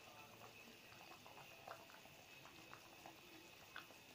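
Fish broth with fried tilapia at a rolling boil in a nonstick wok, bubbling faintly with many small irregular pops.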